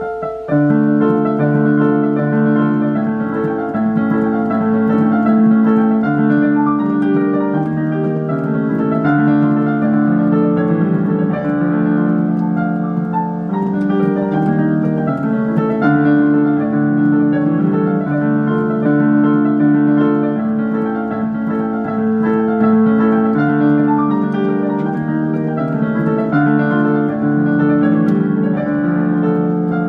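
Piano music: chords and a melody played on a piano.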